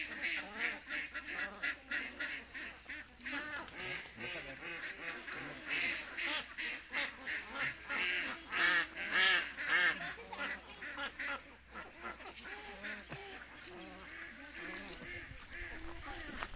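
A flock of ducks quacking: many short calls overlapping in quick succession, loudest around the middle and thinning out near the end.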